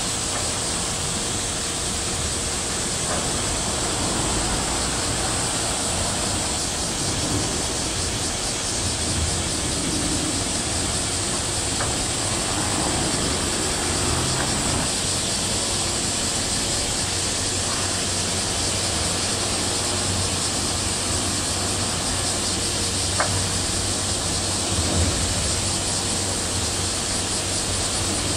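Steady outdoor ambience of a large vehicle carrier passing close: a constant hiss-like wash with a faint low, steady machinery hum from the ship.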